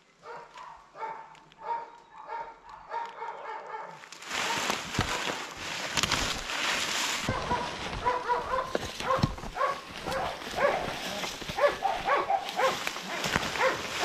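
Dogs barking in a quick series, a few barks a second, at something they have noticed ahead. From about four seconds in, loud rustling and crunching of dry leaves and undergrowth as someone pushes through the brush, with the barking going on over it.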